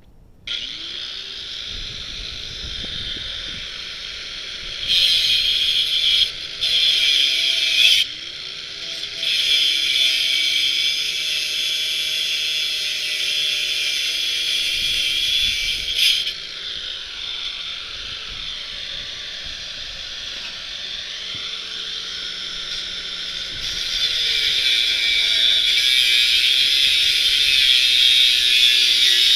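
Power tool cutting through the steel tube of a bicycle frame, a steady high hiss of the cut with the motor's pitch dipping and rising as it loads up. It starts about half a second in, with louder spells in the middle and over the last few seconds.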